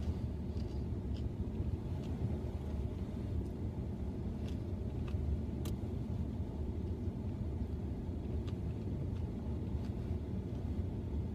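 Steady low rumble inside a car cabin, with a few faint clicks scattered through it.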